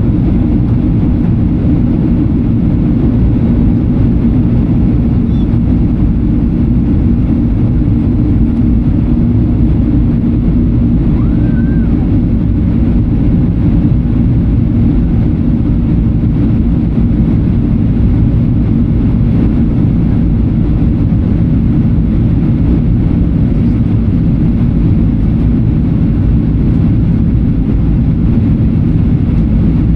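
Steady, loud cabin roar inside a Boeing 737-800 in flight: engine and airflow noise from the CFM56 turbofans, heaviest in the low end.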